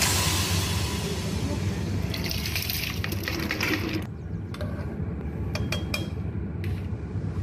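Raw rice poured from a plastic bowl into a pot of chicken broth, a rushing, splashing hiss for about four seconds. Then a metal spoon stirs the pot, with a few light clinks against its side.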